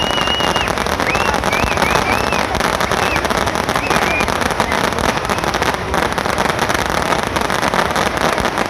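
Fireworks going off with a steady loud hiss and dense crackling, with a thin wavering whistle through the first few seconds.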